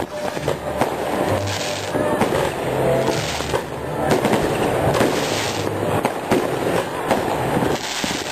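New Year's Eve fireworks going off: a dense run of bangs and crackling, with several short hisses about a second or two apart.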